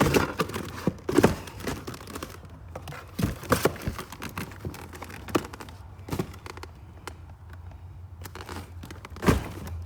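Packaging crinkling and rustling as parts are handled, with a few sharp knocks and clicks.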